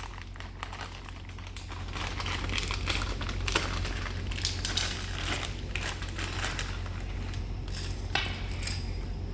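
Light metallic clinks, ticks and rustling from small parts being handled, over a steady low hum.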